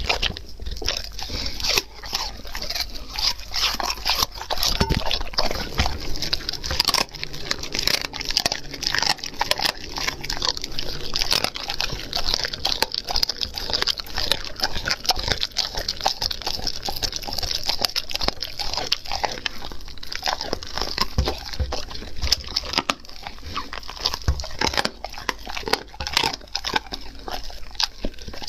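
German Shepherd chewing and biting into a roast meat carcass, close-miked: a dense, continuous run of wet chewing, crunching and tearing.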